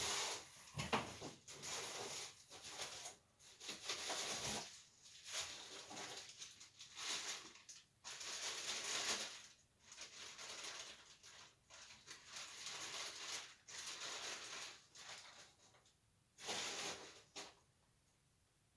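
Rustling and crinkling of packaging as a distributor is unwrapped from its box, in irregular handling bursts that stop shortly before the end.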